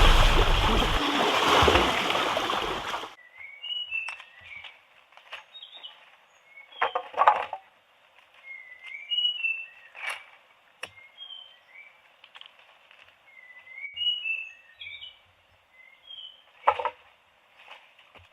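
Music ends about three seconds in. After it, small birds chirp over and over: short high chirps every second or so, broken by a few brief louder noises.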